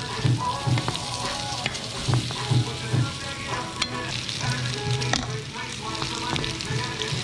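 Potato chunks sizzling as they fry in a nonstick frying pan, stirred with a wooden spatula.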